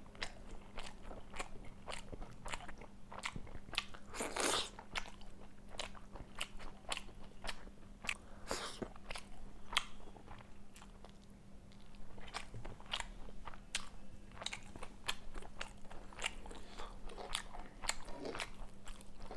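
Close-miked mukbang eating sounds: a steady run of crunchy bites and chewing, many short sharp crunches, with two longer, louder ones about four and a half and eight and a half seconds in.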